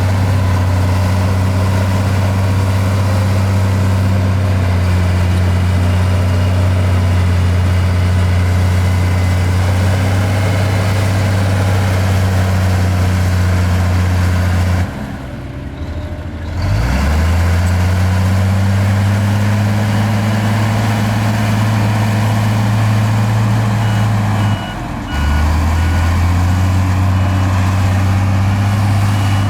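Heavy diesel engine of earthmoving machinery running steadily. The sound drops away briefly twice, and after the first drop the engine comes back rising in pitch. A reversing alarm beeps repeatedly in the last few seconds.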